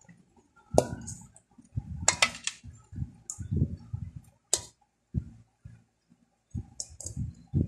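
Irregular clicks and soft knocks as boiled chicken pieces are lifted from an aluminium pot and laid one by one into an earthenware clay pot.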